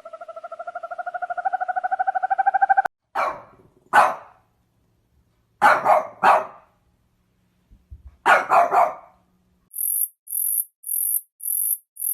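An animal barking: short sharp barks, singly about three and four seconds in, then in quick groups of three. Before them a pulsing, buzzy pitched call rises in loudness for nearly three seconds. Near the end comes a run of very high chirps, about two a second.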